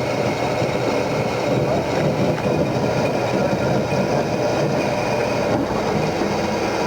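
Haas CNC lathe machining an aluminum workpiece: a loud, steady, rough machining noise that runs unbroken.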